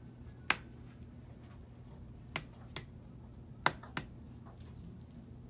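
Hard-boiled egg tapped against the counter to crack its shell: five sharp taps, one early, then two pairs about a second apart, the loudest a little over three and a half seconds in.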